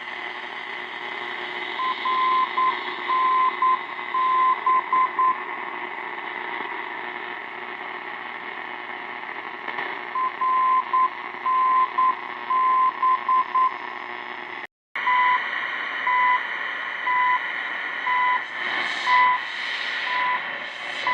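Shortwave radio static with a steady 1 kHz tone beeping through it. Two groups of short and long beeps come first, like Morse code. After a brief dropout about fifteen seconds in, regular one-second beeps follow: the second pips of the CHU time-signal station.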